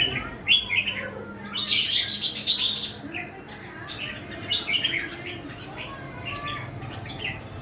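Caged songbirds chirping in quick rapid-fire bursts, densest about two seconds in and again midway.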